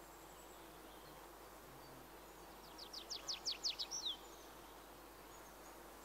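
A small songbird sings one short phrase about three seconds in: a quick run of about ten downslurred whistled notes, growing louder, ending in a slurred final note. Under it runs a faint, steady outdoor hiss.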